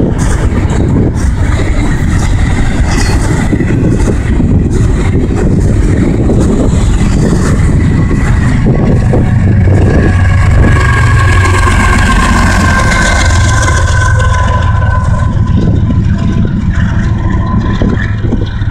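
Union Pacific double-stack intermodal freight train passing close: a loud, steady rumble of wheels on rail. A Union Pacific diesel locomotive goes by about ten seconds in, adding its engine and a pair of steady tones that fall slightly in pitch as it passes.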